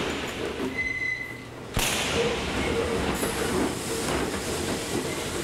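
Subway train running past on the tracks in a tunnel, with a short high wheel squeal about a second in. A sudden thud comes near the two-second mark, and steady train noise carries on after it.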